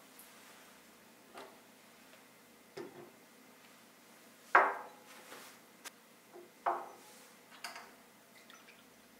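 Glassware handled on a wooden table: a small glass whiskey bottle and a shot glass are set down and picked up, giving a string of light knocks and clinks, the loudest about halfway through.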